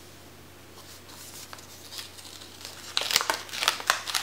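Paper wrapping handled and opened by hand: soft rustling at first, then a quick run of sharp crinkles near the end.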